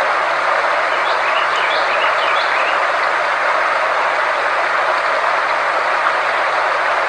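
Steady, even rushing noise from a frequency-therapy sound track, with a faint low steady tone underneath. A few faint, short high chirps come between about one and two and a half seconds in.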